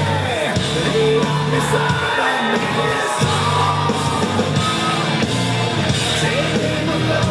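Rock music with a singing voice, played loud, with sustained bass notes.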